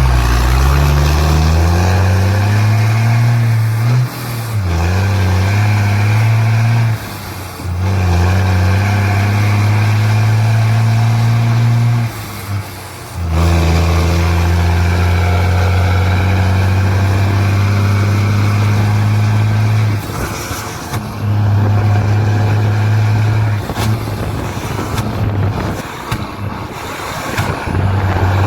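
Truck's straight-piped exhaust rumbling loudly as it pulls a heavy load, its deep note rising over the first few seconds and then holding steady, dropping away briefly several times between long even stretches.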